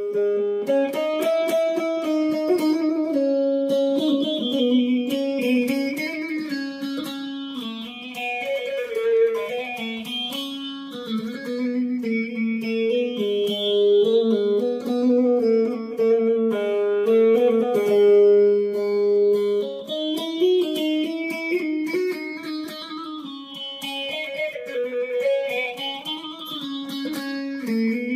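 Bağlama (long-necked Turkish saz) played solo with a plectrum: a fast instrumental melody of quickly repeated picked notes over held lower notes.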